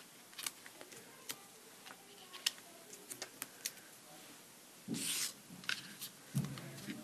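Small scattered clicks and taps of foam adhesive dots being peeled from their sheet and pressed onto card stock, then a brief paper rustle about five seconds in and a few soft thumps as the paper panel is picked up and handled.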